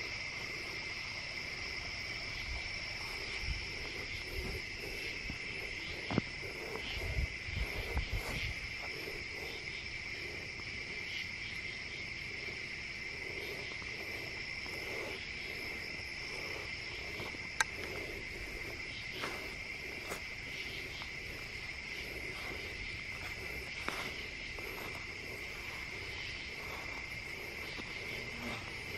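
Night chorus of crickets and other insects singing steadily in two high, unbroken pitches. A few low thumps and rustles of footsteps in grass come about six to eight seconds in.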